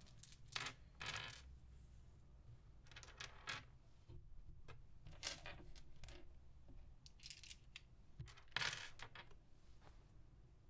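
Wiz Dice plastic polyhedral dice clicking and clattering as they are handled and set down on a wooden tabletop, in scattered short bursts, the loudest clatter about eight seconds in.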